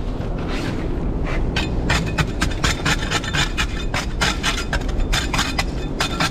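A long-handled scraper rasping oyster clusters off a concrete bridge piling, in quick repeated strokes of shell grating on concrete. The strokes come sparsely at first, then steady at about three or four a second.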